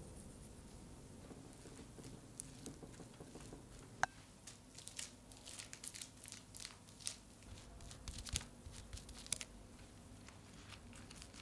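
Soft crackling and light tapping as cooked rice is pressed and spread over a dry sheet of gim (roasted seaweed) on a bamboo rolling mat, with one sharp click about four seconds in.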